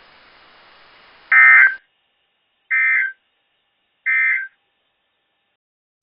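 Emergency Alert System end-of-message (EOM) data tones on NOAA Weather Radio: three short bursts of digital data tones about 1.4 s apart, the first the loudest, signalling the end of the alert message.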